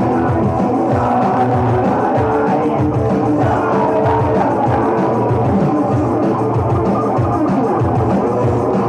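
Loud live punk rock from a Breton punk band on stage: guitar and drums, with a melody of held notes over them.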